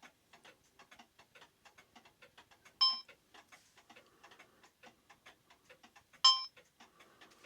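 Mechanical clock ticking quickly and steadily, with two single ringing bell-like strikes about three and a half seconds apart.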